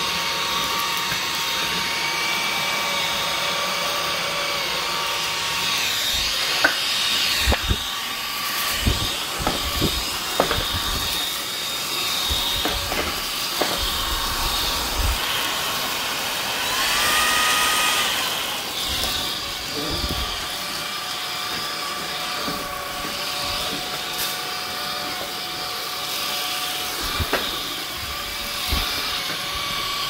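JASHEN V16 cordless stick vacuum running steadily with a high motor whine, with occasional knocks as the floor head bumps along the wooden floor and skirting. About halfway through, the whine briefly rises a little in pitch and then settles back.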